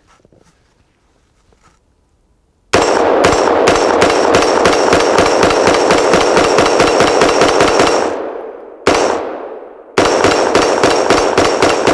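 Seekins AR-15 rifle in 5.56 mm with a muzzle brake, fired rapidly: quiet at first, then a long fast string of shots at about six a second, a single shot, and another fast string near the end.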